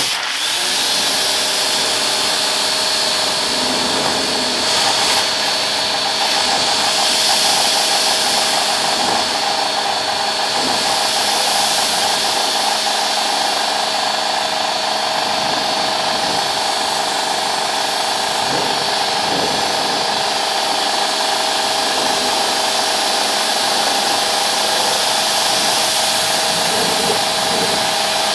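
Pressure washer running steadily as its wand sprays water onto a truck's hood and engine bay: a constant motor and pump whine under the hiss of the spray. The motor comes up to speed right at the start.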